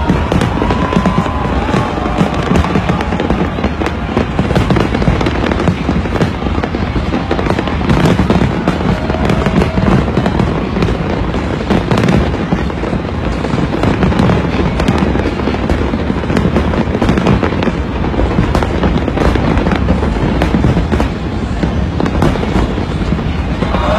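Aerial fireworks going off in a dense, unbroken barrage of bangs and crackles, heard from within a crowd of spectators.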